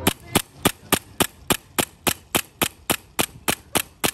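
Airsoft pistol fired in a rapid, even string of sharp shots, about three or four a second, some fifteen in all.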